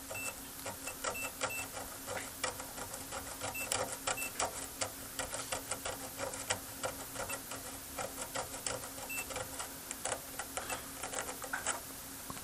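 Multimeter probe tips tapping and scraping along the copper traces of a circuit board in quick irregular clicks, with a few short high beeps from the meter's continuity tester. The traces are being tested for breaks. The clicking stops near the end.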